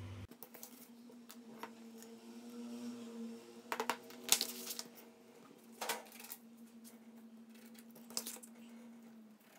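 Handling sounds on a cutting mat: a handful of brief rustles and taps as sheets of paper and sandpaper and a steel ruler are laid down, the loudest about four seconds in, over a faint steady hum.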